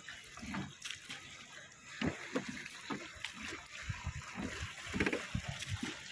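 Wooden rowboat being rowed with bamboo oars: water sloshing and splashing around the oar blades and hull, with a few sharp knocks.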